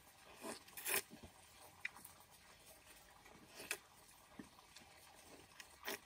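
Eating sounds: a few short, wet bites and slurps into a juicy peeled fruit, the loudest about a second in, with a few more spaced out over the following seconds.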